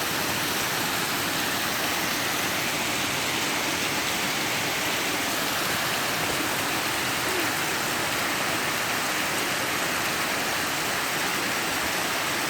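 Heavy storm rain pouring down steadily in strong wind, an even rushing noise that does not let up.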